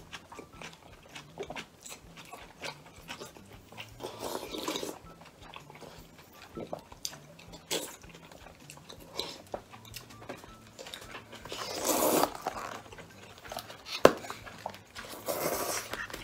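Close-up eating sounds: three slurps of soup from a spoon and chewing in between. A few sharp clicks of a utensil on a plastic takeaway container come through too, the loudest a little after halfway.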